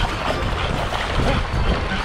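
Shallow surf washing and splashing over wet sand, with wind rumbling on the microphone.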